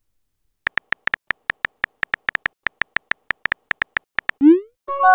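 Phone keyboard clicks from a texting-story app, a rapid irregular run of taps as a message is typed. About four seconds in, a short rising swoop marks the message being sent, and a chime of several steady tones begins near the end.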